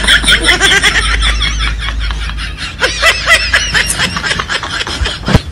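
High-pitched giggling laughter in quick, repeated bursts, over a steady low rumble.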